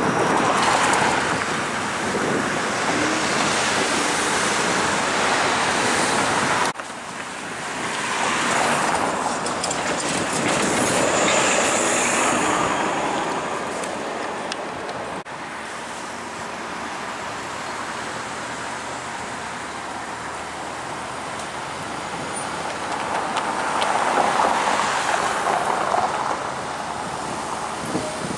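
Flexity Outlook low-floor streetcars running through a street intersection, mixed with passing car traffic. It is louder near the start, again a few seconds after the first jump, and near the end, and the sound drops suddenly at cuts about 7 and 15 seconds in.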